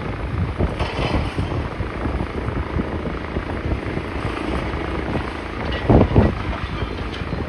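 Wind buffeting the microphone in a low, fluttering rumble, with a louder gust about six seconds in.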